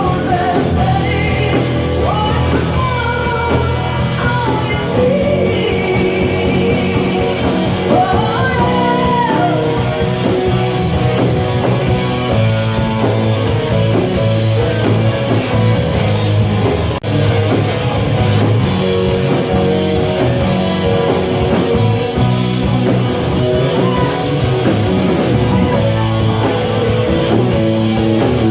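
Rock band playing a song, a voice singing over guitar-led backing, most clearly in the first ten seconds or so.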